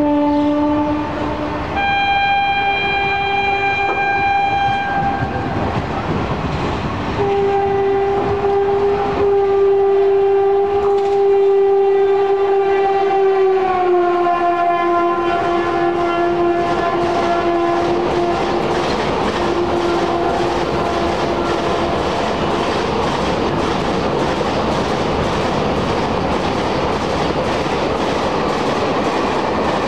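LHB passenger coaches rolling steadily past on the rails as the train pulls out. Over the first twenty-odd seconds a train horn sounds several long blasts, and the longest one drops in pitch partway through.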